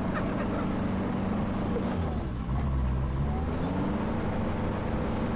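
Off-road vehicle's engine running under load as it drives across a rough field, heard from inside the cab. Its pitch drops about two seconds in and climbs again a second or so later.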